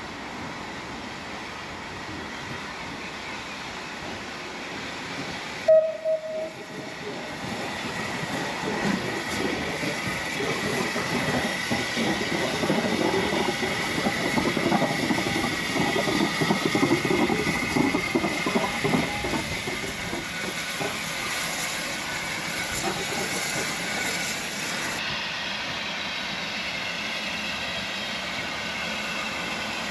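Steam locomotive No. 52322, a Lancashire & Yorkshire Railway 0-6-0, moving on the line: its rumble builds to a peak about halfway through and then eases off, with a steady high whine over the loudest part.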